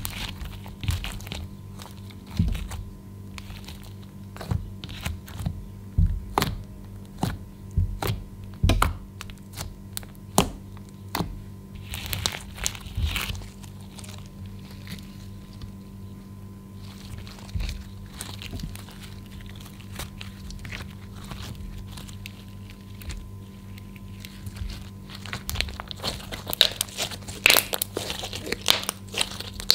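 Hands kneading, stretching and squeezing slime: sticky pops, clicks and crackles as it is pulled and pressed. They come in busy clusters near the start, in the middle and again near the end, with a sparser stretch between.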